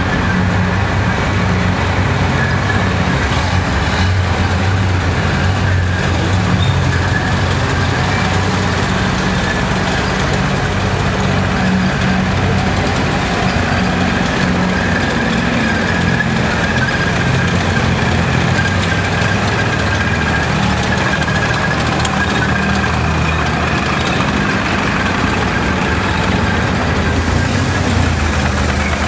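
Engines of WWII tracked armoured vehicles, among them an M4 Sherman tank, running steadily as the tanks drive slowly past.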